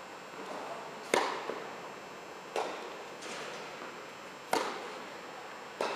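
Tennis ball struck back and forth by racquets in a rally: four sharp pops a second and a half to two seconds apart, with fainter knocks between, each echoing in the indoor court's hall.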